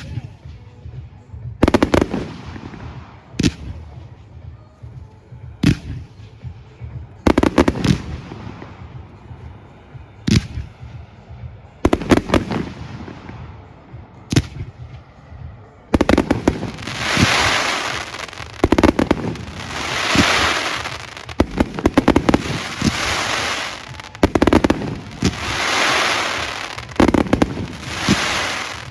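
Fireworks going off: single sharp reports every couple of seconds, then, about halfway through, a dense run of crackling fireworks that swells and fades in waves about every three seconds.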